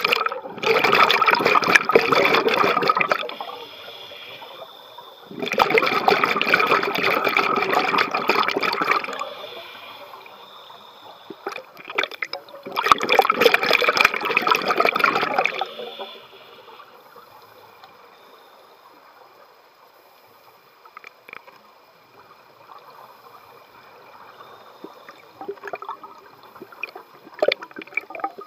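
Scuba regulator exhaling underwater: three bursts of rushing, bubbling noise of about three seconds each, several seconds apart, then a long quieter stretch with faint clicks and pops.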